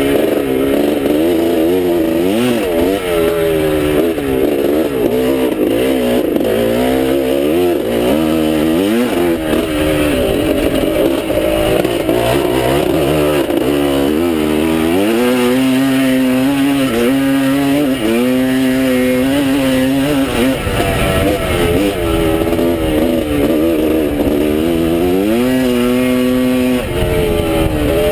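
1979 Yamaha YZ250's two-stroke single-cylinder engine revving hard under load on a motocross track, its pitch climbing and dropping again and again with throttle and gear changes.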